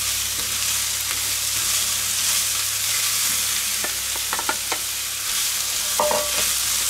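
Chopped vegetables and chicken sizzling in a hot frying pan while a wooden spatula stirs them. About four seconds in, a few sharp taps as the spatula scrapes chopped onion from a steel bowl into the pan.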